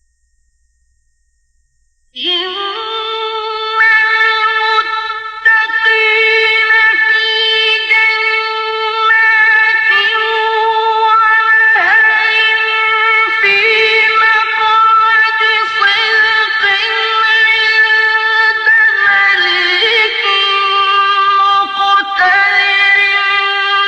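Quran recitation in the melodic mujawwad style: a single male reciter's voice holding long, high, drawn-out notes with small ornaments. It begins about two seconds in, after a short silence.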